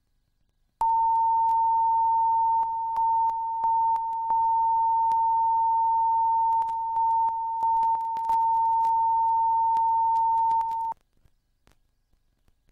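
Broadcast line-up test tone sounding with the pre-programme countdown clock: one steady pitched beep that starts about a second in and cuts off sharply about eleven seconds in. It dips slightly in level several times and has faint clicks through it.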